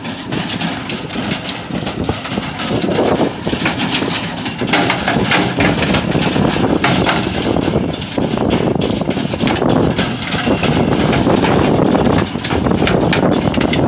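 Tractor-towed stone picker at work: the Tümosan tractor's engine running under load with a dense, irregular clatter of stones knocking against the machine's metal as it lifts and collects them.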